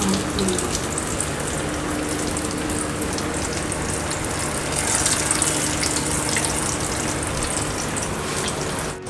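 Hot oil sizzling and crackling steadily around soyabean and chana dal kababs shallow-frying in a pan. The sizzle rises for a moment about five seconds in, after another kabab is laid into the oil. A faint steady hum runs underneath.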